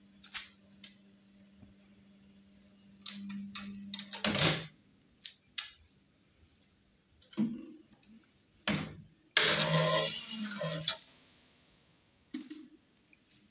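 An old wooden window sash being handled and lifted: a series of wooden knocks, clunks and clicks, with a longer scraping, rattling stretch in the middle that is the loudest part. A steady low hum runs for the first four seconds, then stops.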